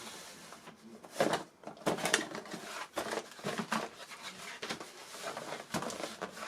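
Packaging being handled while the accessories of a pen display are unpacked: a run of crinkles, rustles and sharp clicks and knocks, loudest about a second in and again near the end.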